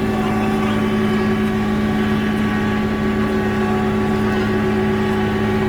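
Heavy machine's engine running steadily at a constant, raised speed.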